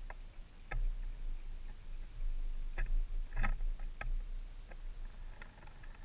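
Red-bellied woodpecker pecking at seed in a wooden feeder close to the microphone: a few irregular sharp taps, over a low rumble of wind on the microphone.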